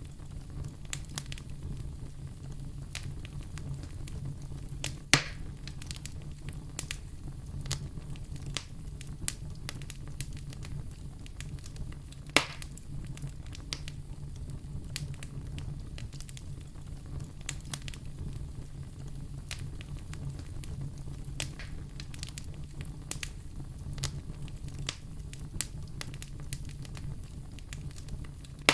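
Wood fire burning in a fireplace: a steady low rumble under frequent small crackles, with two louder pops about five and twelve seconds in.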